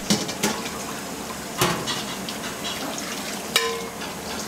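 Kitchen work noise: a steady rush like running water, broken by four sharp clinks, the last one ringing briefly.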